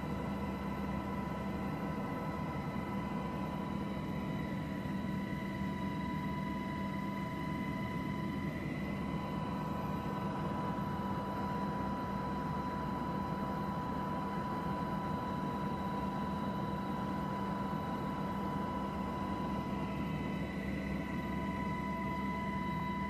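Steady engine drone and hiss, as heard aboard the aircraft doing the filming, with a constant high whine over it.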